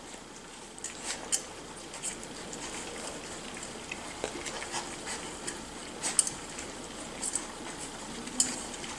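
Litter of 5-to-6-week-old miniature schnauzer puppies eating together from a shared metal bowl: soft, faint eating sounds with scattered small clicks.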